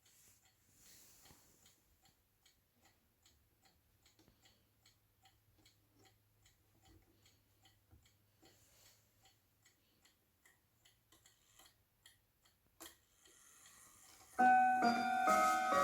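Howard Miller three-chime clock ticking steadily and quietly; near the end a click is followed by the chime starting, several ringing tones struck in sequence and overlapping, much louder than the ticking.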